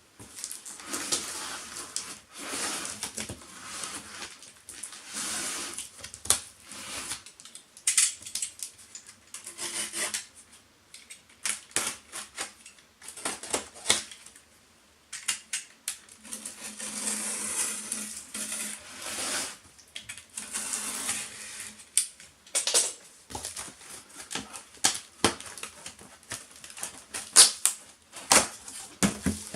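Unboxing by hand: rustling of cardboard and plastic packaging, broken by many sharp clicks and knocks as the box and its contents are handled.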